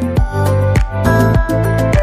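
Background music with a steady beat, with held tones over it.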